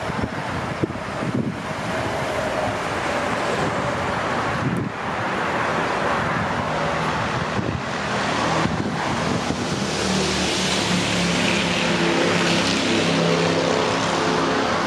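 Street traffic noise with wind rushing on the microphone. About ten seconds in, a nearby vehicle's engine adds a steady low hum.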